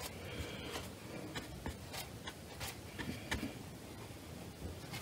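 Faint scratching and rubbing of a watercolour brush on paper and in the paint palette. Two short scratchy strokes come about half a second and three seconds in, with a few light taps between.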